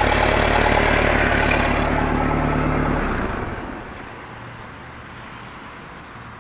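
Boat's sterndrive engine running steadily on a flushing hose, drive in gear with the propeller turning. About three seconds in it stops, leaving a much quieter background with a faint low hum.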